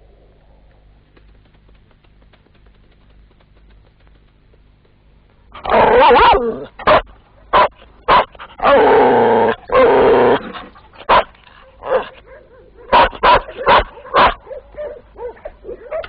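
Dogs barking, starting about five and a half seconds in. First comes a long burst, then single barks and a second long burst, then a quick run of about five barks near the end.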